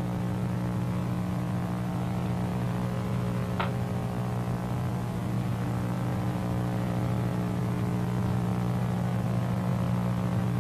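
Steady low electrical mains hum with a faint hiss, and one brief faint click about three and a half seconds in.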